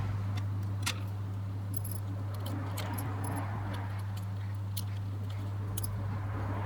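Scattered light clicks and small metallic ticks, like lens parts and small tools being handled, over a steady low hum.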